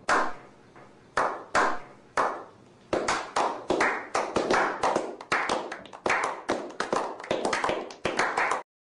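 A slow clap by a small group of men: single claps about a second apart at first, then from about three seconds in several pairs of hands clapping together at a quicker pace, building into steady applause that stops abruptly near the end.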